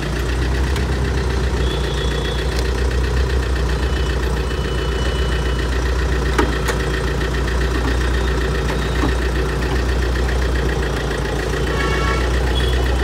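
A car's diesel engine idling steadily under the bonnet, with a low even hum.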